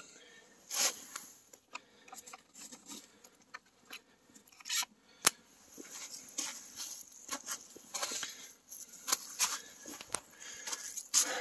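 Irregular crunches, clicks and light knocks of gear being handled and footsteps moving over snow-dusted dry leaves.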